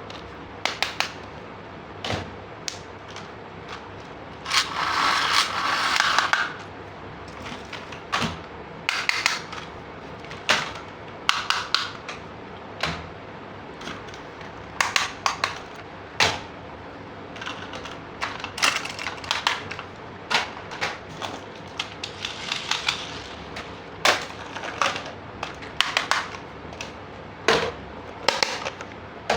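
Hard plastic toy parts being handled, a string of sharp clicks and knocks as pieces are snapped, set down and moved. There is a longer rustling scrape about five seconds in and a softer one a little past the twenty-second mark.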